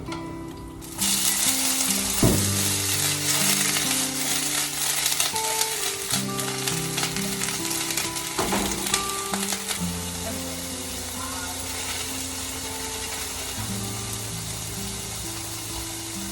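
Food sizzling in hot oil in a frying pan, starting suddenly about a second in, with a few brief stirring scrapes.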